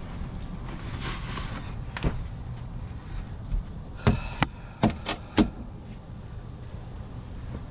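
Belongings being handled and shifted around: a single knock about two seconds in, then a quick run of about five sharp knocks and clacks, over a steady low rumble.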